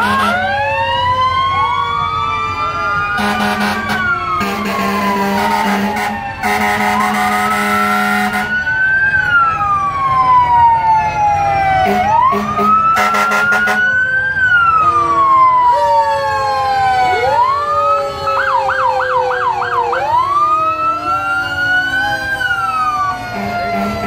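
Several emergency-vehicle sirens wail at once, overlapping and rising and falling every few seconds, with a rapid yelp about three-quarters of the way through. Long horn blasts cut in several times in the first half.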